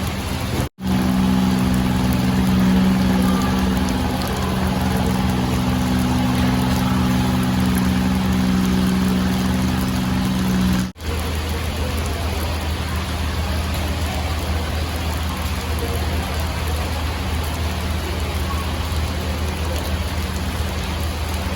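A boat engine running steadily under a constant rushing noise of water or rain. The sound breaks off abruptly twice, about a second in and about halfway through, and after the second break the engine hum is lower-pitched.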